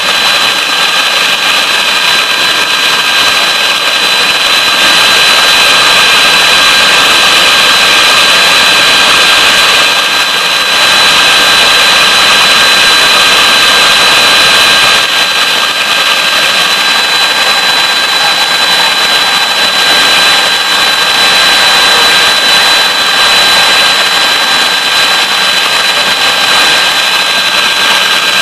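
Electric mixer whipping eggs into a foam for sponge cake: a loud, steady motor whine that runs throughout, shifting in level a few times.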